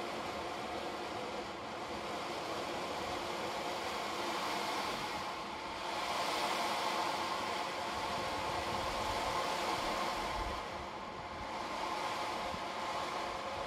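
Ocean drum tilted slowly back and forth, the beads inside rolling across the head in a continuous rushing hiss that swells and ebbs like surf, dipping twice.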